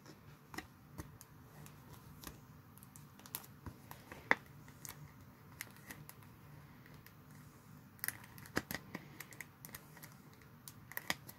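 Faint, scattered clicks and plastic handling sounds from a trading card being put into a plastic sleeve and a rigid Ultra Pro toploader. A cluster of clicks comes about eight seconds in, and a few more near the end.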